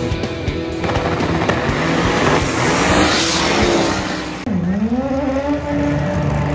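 Drag race cars at full throttle during burnouts and launches: a dense roar of engine and spinning tyres that swells to a peak about three seconds in. After a sudden change about four and a half seconds in, a single car's engine dips in pitch, then climbs back and holds a high rev.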